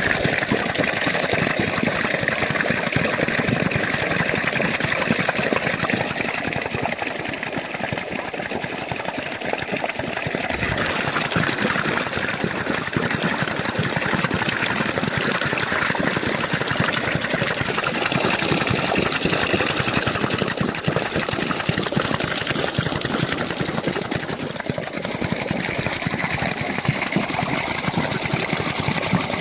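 Water pouring and splashing onto a small homemade wooden water wheel as it spins, its paddles slapping through the stream in a fast, steady patter.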